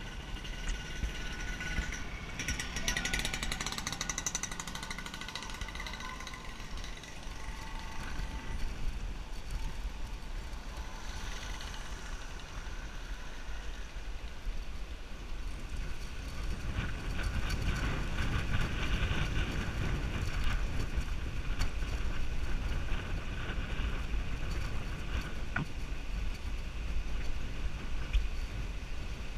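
Bicycle ride recorded from the bike: steady wind on the microphone and the rumble of the ride, with clusters of high steady tones swelling in twice, near the start and again about two-thirds of the way through.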